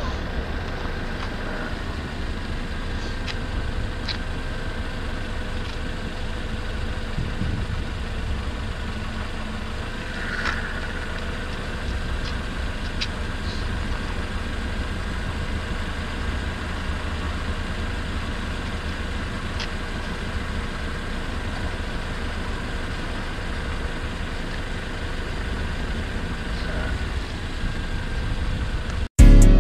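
Steady city traffic noise, a continuous low rumble of vehicle engines.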